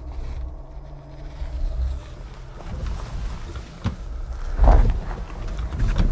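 Rivian R1T electric pickup crawling slowly over a rock ledge: tyres crunching and scraping on rock and gravel over a low rumble, with one louder thump about four and a half seconds in.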